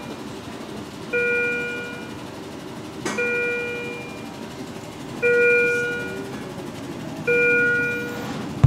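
Neonatal intensive care monitor alarm: a bell-like chime that sounds for about a second and fades, repeating about every two seconds, four times.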